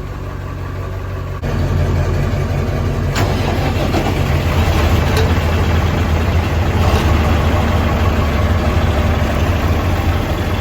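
Ford 7.3 Power Stroke turbodiesel V8 running shortly after a cold start, a steady low engine note that gets louder about a second and a half in and then holds.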